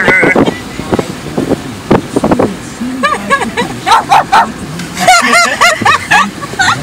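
A woman barking like a dog, a run of short, high yelping barks in the second half.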